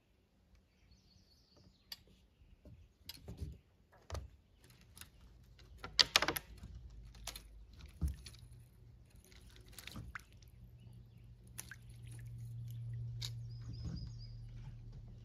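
Scattered small knocks and clicks of gear being handled in a small boat, the loudest about six seconds in. A short high bird call about a second in and again near the end, and a low steady hum that builds up from about halfway.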